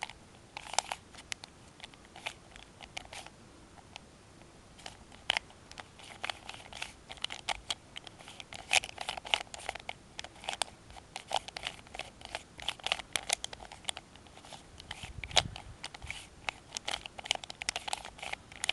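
Cheap plastic 3x3x3 Rubik's cube being turned fast in a speedsolve: layers clicking and clacking in quick irregular bursts, with brief pauses between runs of turns.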